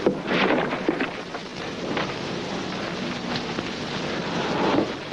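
Crowd of men in the street, a steady rustling hubbub with a few brief sharp sounds in the first two seconds.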